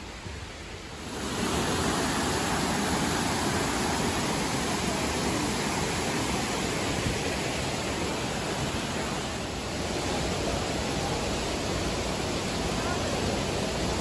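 Waterfall spray and stream water rushing in a steady, even hiss that comes up loud about a second in.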